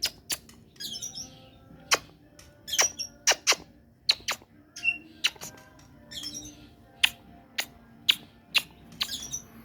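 Oriental magpie-robin (kacer) calling: a run of sharp, very short chips about once or twice a second, broken by a few short high twittering phrases.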